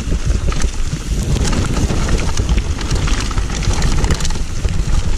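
Trek Remedy mountain bike ridden fast down a dirt trail: knobby tyres rumbling over dirt and leaf litter and the bike rattling with many quick clicks, under heavy wind buffeting on the microphone.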